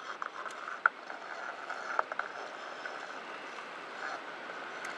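Hand-cranked anchor winch on a boat's bow being worked to let the anchor down: a steady mechanical running sound with a few sharp clicks.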